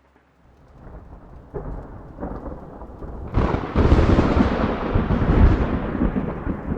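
A deep rolling rumble with a hiss over it, like thunder in rain. It builds up from silence and becomes sharply louder about halfway through.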